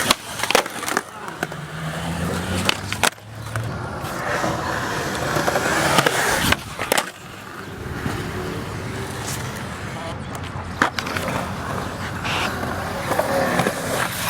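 Skateboard wheels rolling on wet concrete, with several sharp clacks of the board striking the ground as tricks are popped and landed.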